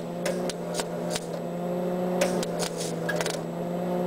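Small 110-volt MIG welder tack-welding a muffler pipe: the arc crackles in short, irregular bursts over the welder's steady hum.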